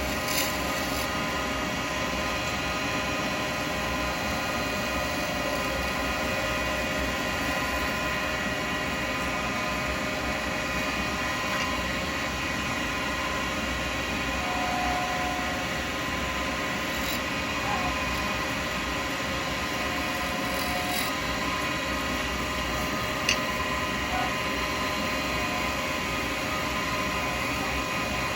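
Lathe running steadily while a carbide chisel turns an acrylic pen blank: an even motor whine with a few faint chirps and one sharp click about 23 seconds in.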